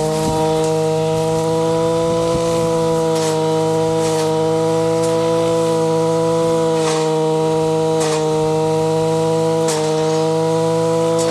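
Zenoah BCZ315 two-stroke brush cutter running at high revs while its blade cuts grass. The engine note dips briefly four or five times as the blade bites into the grass.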